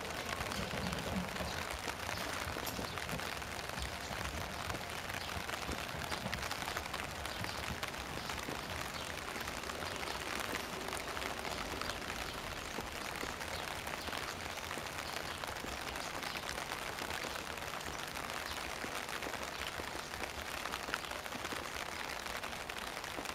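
Steady rain, pattering and dripping with many small scattered drop ticks.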